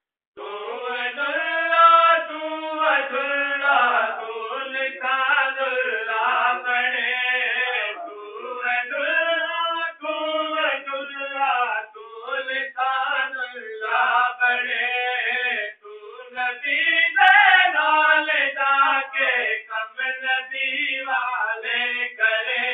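Unaccompanied male chanting of a devotional recitation. The melodic phrases are sung one after another, with brief pauses for breath between them.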